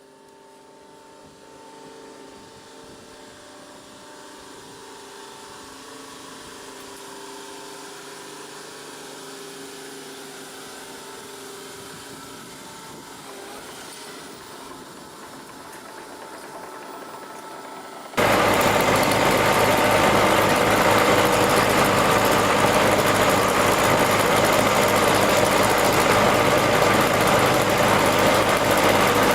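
An engine running fairly quietly with slowly shifting tones. About two-thirds of the way through it cuts abruptly to a much louder engine running steadily.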